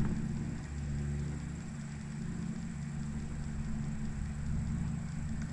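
A steady low motor hum, holding several fixed low pitches, with a faint hiss over it.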